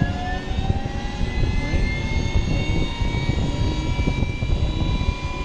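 MD500C helicopter's turbine engine spinning up during its start: a whine with several pitches that keeps climbing, then holds steady from about three seconds in, over a dense low rumble.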